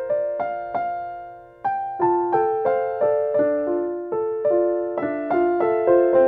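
Solo piano playing a melody over simple chords in the middle register, each note struck and left to ring. About a second in, one note is left to fade out before the playing picks up again with quicker, denser notes.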